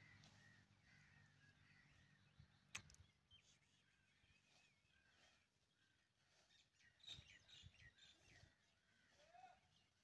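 Near silence: faint outdoor ambience with a few faint, high, wavering chirps and a single sharp click a little under three seconds in.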